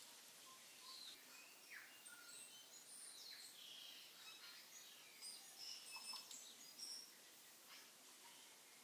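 Near silence: faint room tone with scattered short, high chirps.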